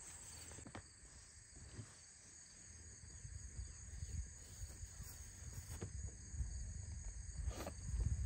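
Faint, steady high trill of insects, under a low rumble. A few soft knocks come through, the loudest near the end.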